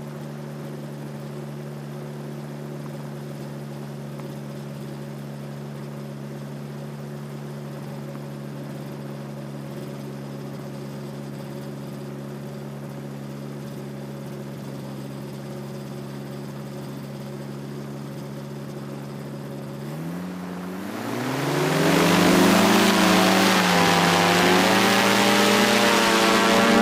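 Tandem paramotor trike's engine and caged propeller idling steadily, then throttled up about twenty seconds in: the pitch rises and a loud propeller rush builds as it goes to full power for the takeoff roll.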